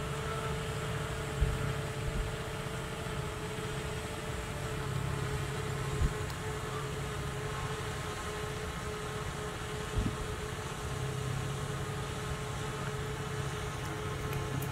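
Steady motor hum holding one constant tone, with a few soft knocks about one and a half, six and ten seconds in.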